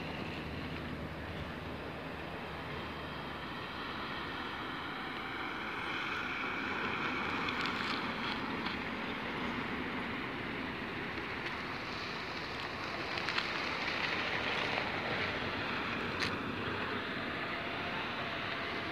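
Street traffic: cars driving past over a steady hum of traffic, swelling louder as nearer cars pass, once about a third of the way in and again past the middle.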